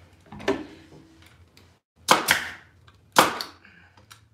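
Pneumatic 18-gauge nailer/stapler firing staples through fabric into a wooden chair seat: a lighter click near the start, then two sharp shots about a second apart.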